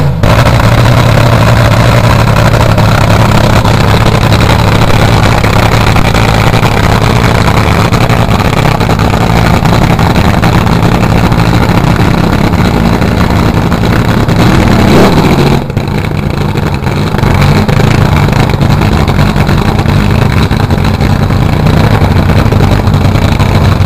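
Supercharged Mopar V8 of a nostalgia front-engine nitro dragster running very loud at a steady cackle. About fifteen seconds in it revs up in a rising sweep, and the sound dips briefly just after.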